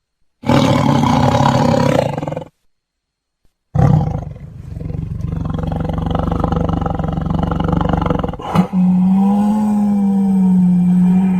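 Big cat roaring: a loud roar lasting about two seconds, a second of silence, then a long, low rumbling growl. About three-quarters of the way through, a different steady, low-pitched call starts and is held for about three seconds.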